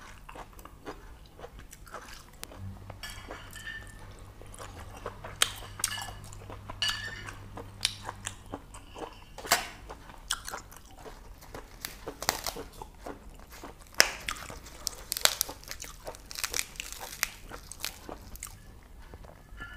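A person chewing boiled pork intestines close to the microphone: irregular short wet mouth clicks and bites with pauses between them.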